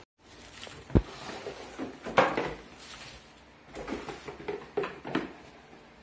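Cardboard box and plastic-wrapped parts being handled: a dull thump about a second in, then bursts of cardboard and plastic rustling and knocking.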